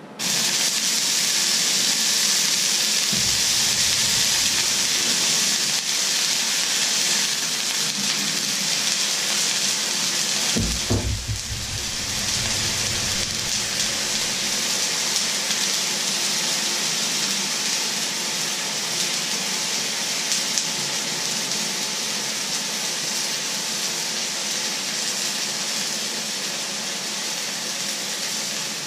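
Water poured into a very hot wok starts hissing suddenly and loudly, then keeps up a steady, fierce sizzle as it boils off on the hot metal. A low bump comes about eleven seconds in.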